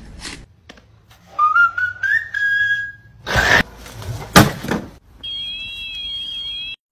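A moose's hooves strike a robotic lawnmower with two loud thuds, coming after a rising whistle. A steady high-pitched electronic tone then sounds for about a second and a half and cuts off suddenly.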